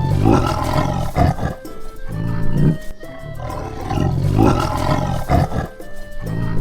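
Tiger roaring and growling, the same roar heard twice about three seconds apart, over background music.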